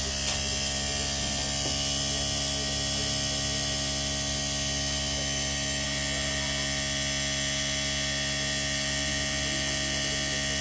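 Panasonic 2-ton inverter air conditioner outdoor unit running steadily after repair of its speed ('gear') fault: an even hum.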